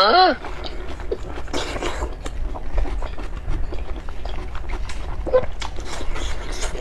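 Close-miked mouth sounds of a person chewing a mouthful of spicy hotpot food: irregular wet smacks and small clicks. Right at the start, a short hum that rises and falls in pitch.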